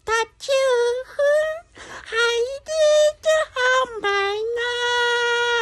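A man singing in a high voice: a quick run of short notes, then one long held note near the end.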